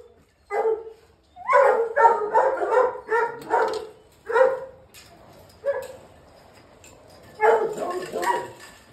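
Hunting hounds barking in their kennel runs: a quick string of barks a second or two in, a couple of single barks, then another string near the end.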